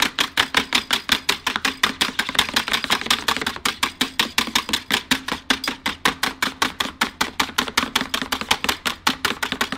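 Wire egg whisk beating soapy water in a shallow tray, fast and rhythmic at about five or six strokes a second, whipping the dish soap into foam.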